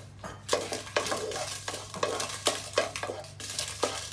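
Wooden spatula stirring and scraping dried red chillies as they fry in a nonstick pot, in quick, uneven strokes about three a second.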